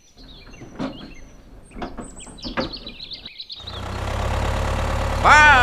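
Birds chirping, with a few sharp knocks. About three and a half seconds in, this gives way abruptly to a steady motor hum, and a short rising-and-falling call sounds over it near the end.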